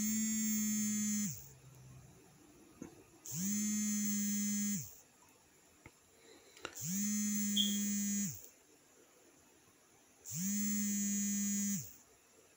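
A small electric motor buzzing in four bursts of about a second and a half each, one every three and a half seconds, spinning up at the start of each burst and winding down at the end.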